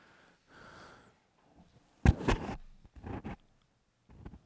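Handling noise on a head-worn microphone: rustling and scuffing, with a sharp thump about two seconds in and a few more short knocks as a hand brushes the mic.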